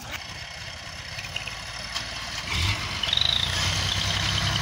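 Diesel engine of a Ford tractor revving up under load as it pulls a stuck dumper truck, the low rumble swelling about two and a half seconds in, with a high steady whine joining soon after.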